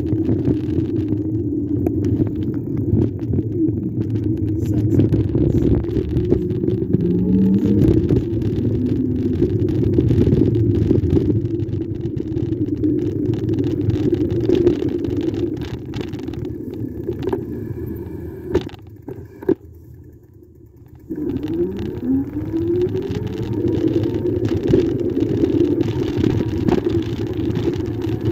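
Electric bike riding along an asphalt path: a steady low rumble of wind on the handlebar-mounted microphone and tyre noise. It drops away for a couple of seconds about 19 seconds in, then returns with a short rising whine.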